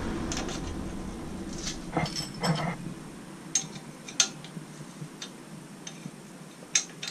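Light metallic clicks and clinks, about eight in all, as a hand fits and ties off the baffle's retaining bolt at the end of a motorcycle exhaust silencer. There is a brief scrape about two and a half seconds in, and the loudest click comes about four seconds in.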